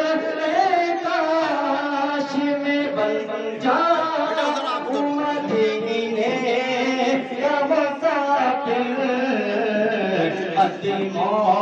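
A man singing a devotional melody solo into a handheld microphone, holding long notes with wavering, ornamented pitch.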